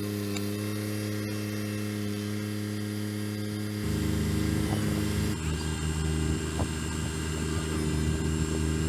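Kubota BX23S tractor's three-cylinder diesel engine running steadily while the backhoe is worked. About four seconds in it gets louder and its note changes, then shifts again a second and a half later.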